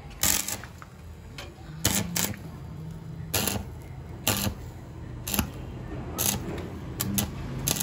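Stick (arc) welding electrode striking and holding the arc in short hissing bursts, about one a second, burning holes through the hard steel insert of a homemade exhaust dB killer.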